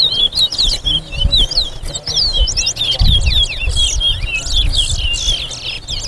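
Caged towa-towas (chestnut-bellied seed finches) singing a fast, unbroken run of short, sliding whistled notes: competition song, each song tallied in a singing race.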